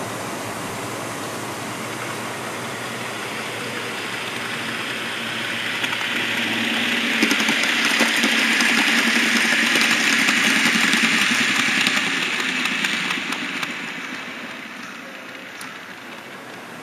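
A model train's electric motor and wheels running on the rails, a steady hiss with a low hum. It grows louder about six seconds in, with fine clicking, and fades back down near the end.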